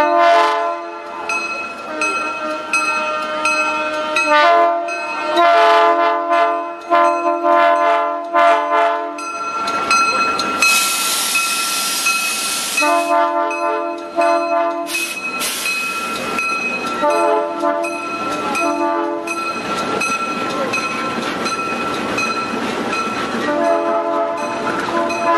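GE C30-7A diesel-electric locomotive sounding its air horn in a series of short and long blasts as it passes hauling a passenger train. There is a loud rushing hiss for a few seconds as the locomotive goes by, about ten seconds in.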